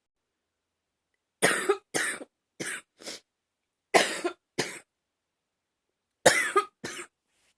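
A woman coughing in three short bouts: four coughs, then two, then two, each bout starting with its strongest cough, with silent pauses between.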